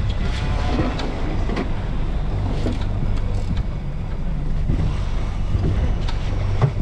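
Outboard motor running steadily at low speed, mixed with wind buffeting the microphone and sea water washing around the boat.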